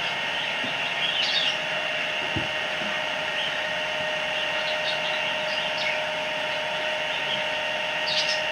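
A steady hum holding a few constant tones, with a few faint high chirps and a single soft low thump about two seconds in.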